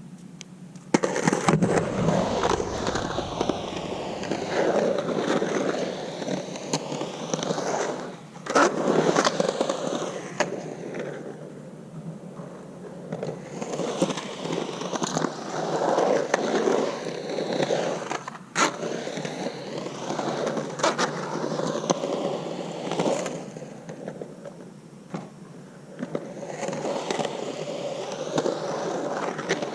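Skateboard on hard 97a Santa Cruz Slime Ball urethane wheels rolling and carving around a concrete bowl: a steady rolling roar that swells and fades. Sharp clacks come a few times as the board comes down from kick turns.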